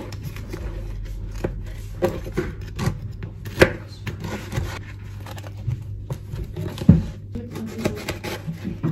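Knife cutting and scraping through baked honey-cake layers on a wooden cutting board to trim their edges: irregular rubbing strokes with a few sharp knocks, the loudest about three and a half and seven seconds in.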